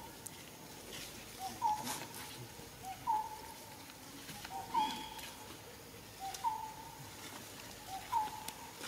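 A bird calling over and over: a two-note call, a lower note followed by a higher one that falls away, repeated five times about every second and a half.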